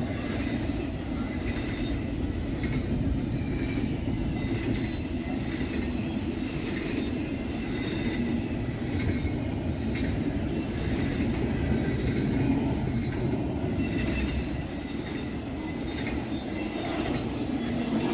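Freight train rolling past: a steady rumble of steel wheels on the rails, with faint high wheel squeal.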